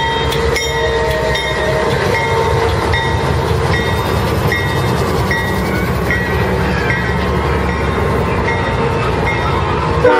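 Diesel locomotive standing with its engine running, a loud steady rumble. Over it a bell rings steadily, a stroke a little faster than once a second. A horn blast begins at the very end.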